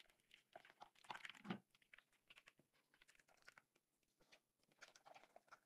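Faint, irregular scraping and light clicks of a spatula stirring hot cream into white chocolate in a bowl, as a ganache is mixed.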